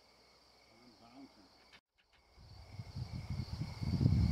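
Crickets trilling steadily, with the sound cutting out briefly about two seconds in; after that a low rumble sets in and grows louder toward the end. No gunshot.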